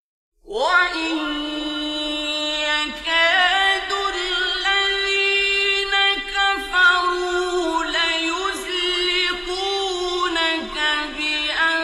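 A man reciting the Quran in the melodic mujawwad style. His single voice comes in suddenly after about half a second of silence and holds long, ornamented notes that waver and slide.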